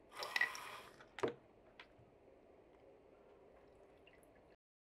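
Water sloshing in a plastic tub for under a second as a glass bottle is set mouth-down in it. A single sharp knock follows, then a faint tick. The sound cuts off suddenly near the end.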